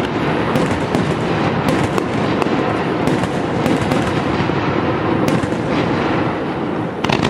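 Aerial firework shells bursting in a dense, continuous barrage: overlapping bangs and crackling, with frequent sharp reports.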